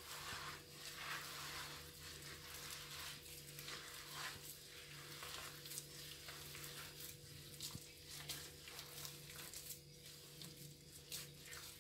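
A hand mixing and squeezing a crumbly dough of ground peanuts, sugar and beaten egg in a glass bowl: a faint, irregular gritty rustling and scraping. A steady low hum sits underneath.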